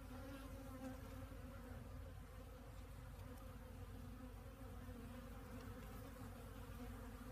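Honeybees flying around the entrance of a wooden hive: a faint, steady, low hum of wingbeats.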